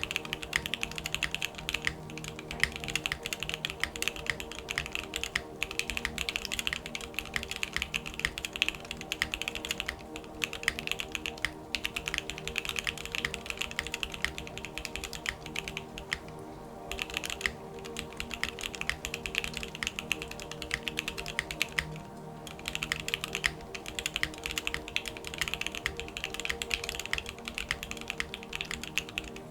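Mechanical keyboard, a Geonworks F1 with JWK Alpaca linear switches, typed on steadily in fast runs of clacky keystrokes, with two brief pauses about two thirds of the way through. Soft sustained background music plays underneath.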